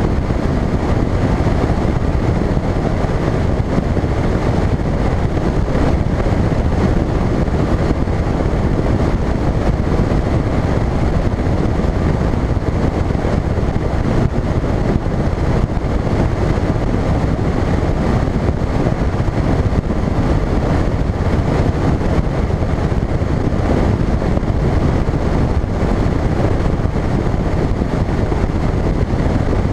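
Phoenix bass boat running at speed: a steady rush of outboard motor, hull on the water and wind buffeting the microphone, with no letup.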